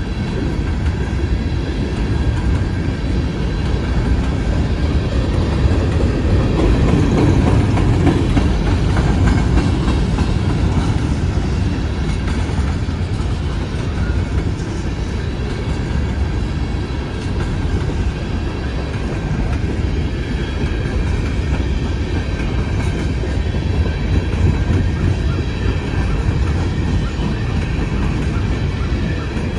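Empty open-top coal cars of a freight train rolling steadily past close by, steel wheels running on the rails.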